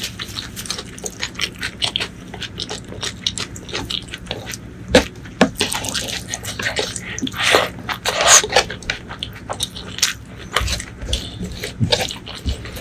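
Close-miked wet eating sounds: chewing and mouth clicks, with fingers squishing curry-soaked rice against a wooden plate. The sound is a rapid run of small wet smacks, with a few louder squelches about five and eight seconds in.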